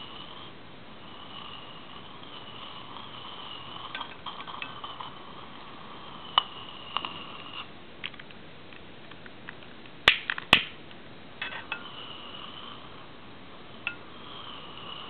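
A handful of sharp clicks and small pops while the hydrogen gas over a salt-water electrolysis jar is being lit, the loudest two close together about ten seconds in, over a faint steady high whine.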